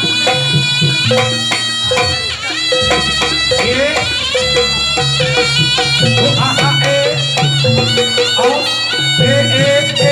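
Javanese jaranan accompaniment music: a reedy, nasal shawm (slompret) plays a sliding melody over steadily repeating drums and low gong-like notes.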